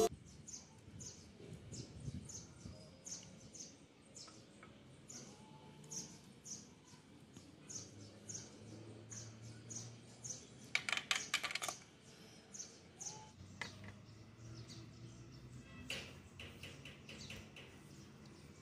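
Faint, repeated short high chirps of a bird, about two a second. A short run of quick sharp clicks comes about eleven seconds in.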